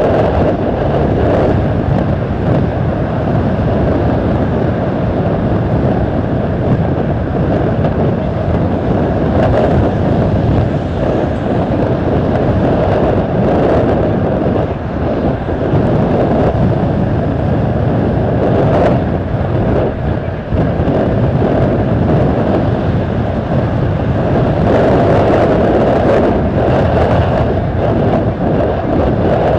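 Airbus A320's jet engines running as it lines up and begins its takeoff roll: a steady, loud rumbling noise that grows a little stronger near the end, with wind buffeting the microphone in a strong crosswind.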